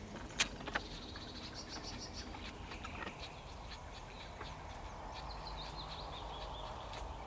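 Quiet lakeside ambience with a small bird singing: runs of short, high, repeated notes, twice. A few sharp clicks come about half a second in.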